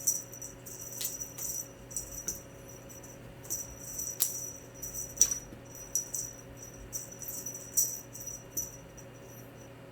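A cat teaser toy on a wand being jiggled and shaken, giving irregular small jingling rattles.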